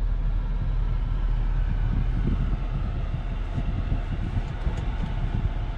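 Steady low rumble of a BMW car rolling slowly, heard from inside the cabin.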